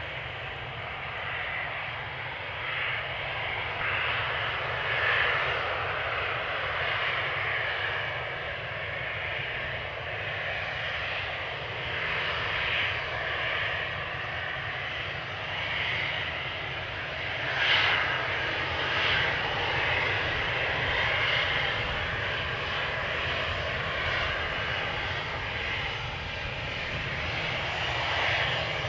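CFM56-5A1 jet engines of an Airbus A320-211 running as the airliner rolls along a wet runway toward the listener: a steady jet roar that swells and eases several times, loudest a little past the middle.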